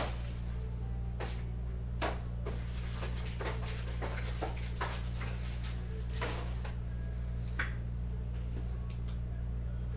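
Scattered clicks, knocks and rustles of objects being handled on a desk, over a steady low electrical hum, with one brief higher squeak near the end.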